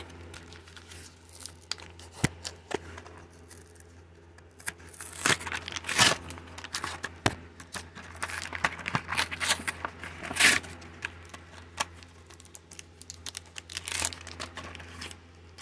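Pokémon card blister pack being torn open by hand: the packaging tears and crinkles in irregular bursts with sharp clicks, loudest about six and ten and a half seconds in.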